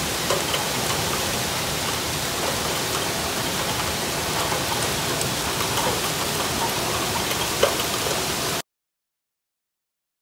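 Heavy rain pouring steadily, a dense hiss with scattered small ticks of drops striking. It cuts off abruptly shortly before the end.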